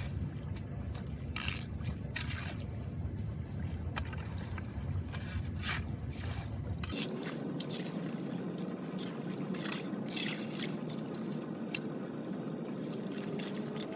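Water trickling and dripping while a hand tool scrapes and knocks against debris in a blocked drain, with sharp clicks scattered throughout. A low rumble underneath stops abruptly about seven seconds in.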